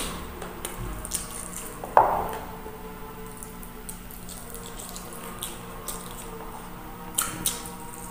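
Close-up eating sounds: wet chewing, sucking and lip smacks as a man eats chicken feet adobo and rice by hand, with a sharp smack about two seconds in.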